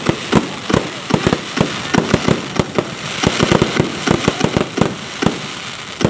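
Fireworks going off in a rapid, irregular barrage of sharp bangs, several a second, over continuous crackling.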